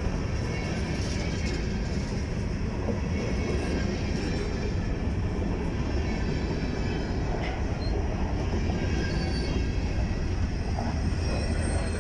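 Covered hopper grain cars of a freight train rolling past close by: a steady rumble and clatter of steel wheels on the rails.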